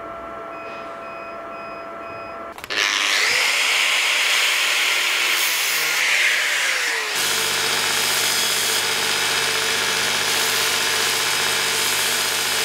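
Power grinding of metal in three edited takes. First a machine motor hums steadily. About two and a half seconds in, a grinding disc bites into a small metal pin with a loud rasping hiss, its motor pitch dipping and recovering under load. Then a belt grinder runs steadily as a small metal part is ground against the belt, throwing sparks.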